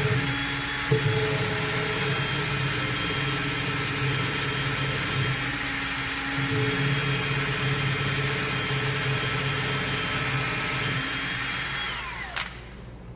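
Electric drill running steadily while boring a hole through an MDF panel, then released near the end and winding down with a falling whine.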